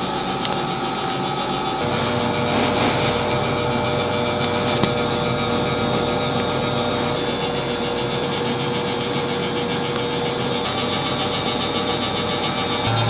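Steady mechanical hum of a running machine, even in level throughout, with a humming tone that comes in about two seconds in and drops out near the end.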